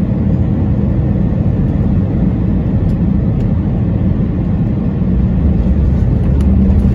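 Steady low rumble of a jet airliner heard from inside the cabin as the plane rolls along the ground, growing a little louder near the end.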